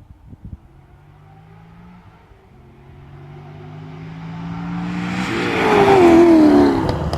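Chevrolet Camaro Z/28 V8 approaching under acceleration, its engine note climbing in pitch and growing louder, then passing close by about six seconds in with the pitch dropping as it goes away.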